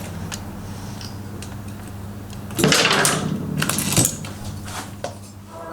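Scattered metallic clicks and a short burst of clatter about two and a half seconds in, from hands working on a Yamaha XT600E engine during reassembly, over a steady low hum.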